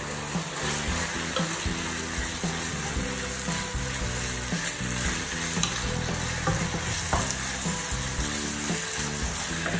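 Minced beef and onions sizzling as they brown in a frying pan, stirred and scraped with a wooden spoon.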